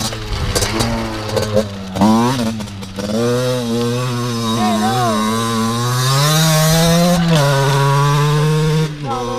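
Two-stroke dirt bike engine revving up and down under hard riding, held high for a couple of seconds before the throttle comes off near the end.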